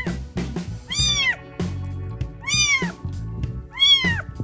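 A 19-day-old kitten mewing while being held: three high mews about 1.5 s apart, each rising then falling in pitch.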